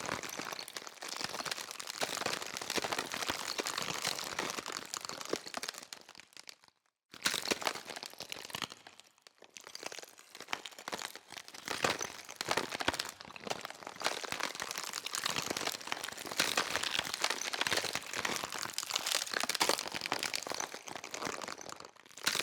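ASMR 'brain scratching' sound effect: dense, fast scratching and crinkling crackles. It cuts out completely for a moment about seven seconds in and thins briefly a couple of seconds later before carrying on.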